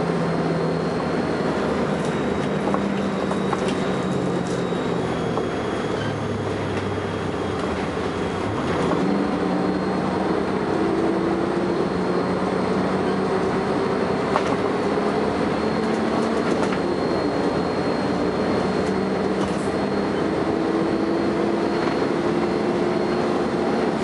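Volvo B10BLE bus's diesel engine running under way, its note rising as it accelerates about nine seconds in and again near the end, with a thin high-pitched whine over it: the strange noise this bus makes.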